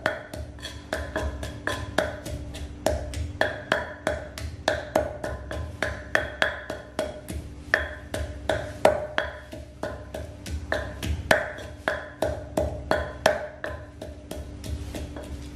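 Wooden pestle pounding in a clay mortar, about three knocks a second, each with a short ring: coriander root being pounded into a seafood dipping sauce.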